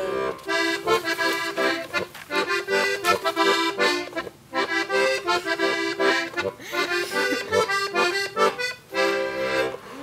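Diatonic button accordion playing a lively instrumental interlude in Bavarian folk style, chords in short phrases of about two seconds with brief breaks between them.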